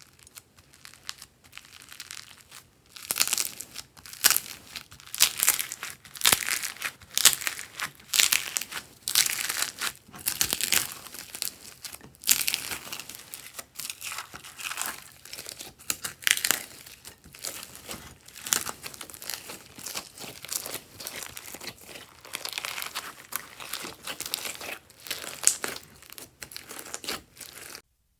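Crunchy slime being squeezed and worked by hand: a dense, irregular crackling and popping. It starts faint, grows much louder about three seconds in, and stops abruptly near the end.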